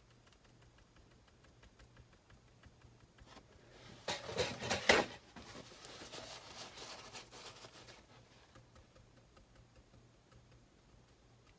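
A few seconds of scratchy rustling and scraping with a few sharp clicks, loudest about five seconds in, then fading out by about eight seconds: off-camera handling of painting materials.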